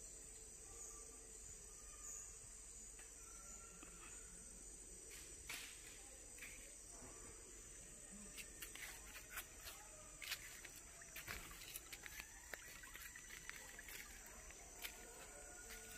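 Faint steady high-pitched insect chorus in rainforest, joined about halfway through by footsteps crunching and rustling on dry leaf litter.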